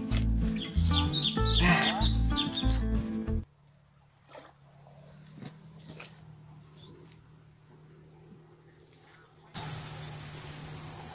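Background music with a steady beat for the first three seconds or so, over a constant high insect trill. After the music stops, only the insect chirring remains, and it becomes much louder about ten seconds in.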